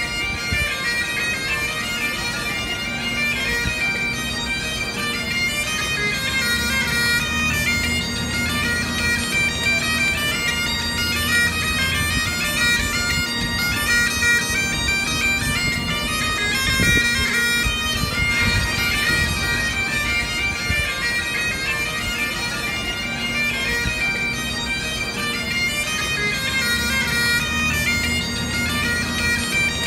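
Bagpipe music: a fast tune of changing notes played over steady droning tones.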